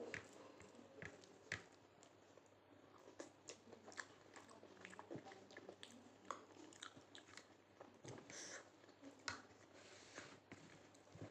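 Quiet, close-miked chewing and biting of dal rice with Maggi noodles and egg: a string of short wet mouth clicks and smacks.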